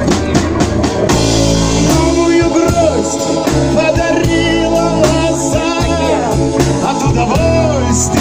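Live band music: a singer's voice over guitar, bass and drums with a steady beat.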